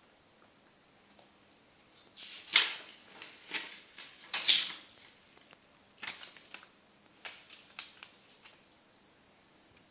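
Sticky homemade slime being handled, squeezed and pulled: clusters of short noisy bursts, loudest about two and a half and four and a half seconds in, with a few softer ones later.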